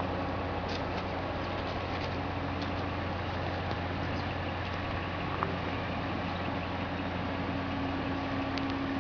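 Steady low mechanical hum under a constant rush of noise, with a single faint tick about five seconds in.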